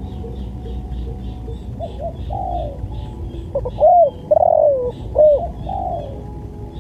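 Spotted dove (tekukur) cooing in short mellow phrases, several soft notes building to the loudest coos about midway. A small bird chirps faintly and steadily throughout.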